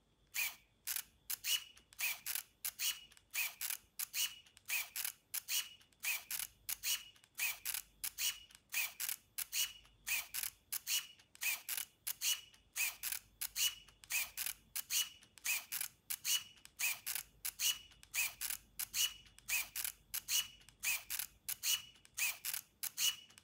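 Leica Minilux compact film camera's shutter firing over and over with a short mechanical whir each time, about three actuations every two seconds, evenly spaced. The shutter is being cycled to test it after reassembly; it had been put together wrongly and would not fully open at slow speeds.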